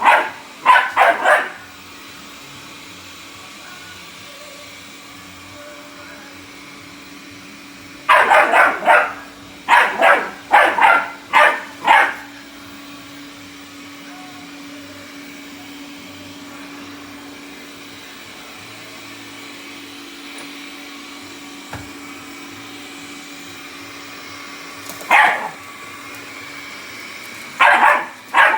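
Bull Terrier puppy barking in bursts at a running robot vacuum cleaner, whose motor hums steadily underneath. There is a quick volley of barks at the start, a run of about half a dozen barks around eight to twelve seconds in, a single bark later on, and another volley near the end.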